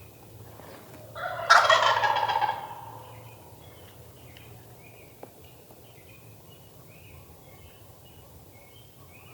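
A wild turkey gobbler gobbling once, a loud rapid rattling call that starts about a second in, lasts about a second and a half and falls away.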